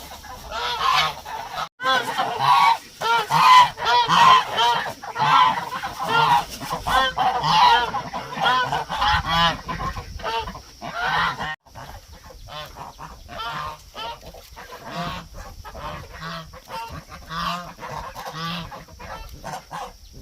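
A flock of domestic ducks quacking, many short calls overlapping, denser and louder in the first half and quieter after about eleven seconds.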